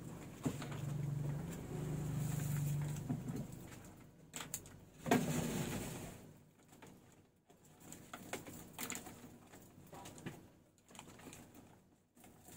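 Scattered knocks and clinks of bottles and goods being handled at a shop counter, loudest a single knock about five seconds in. A low steady hum sounds twice in the first three seconds.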